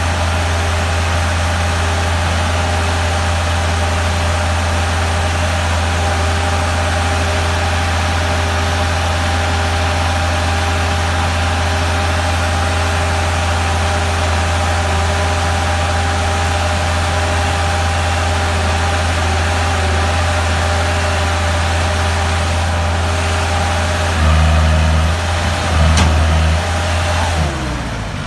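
Engine of a tracked crawler mobile-home mover running steadily with a loud low hum. Near the end its revs surge twice briefly, then wind down.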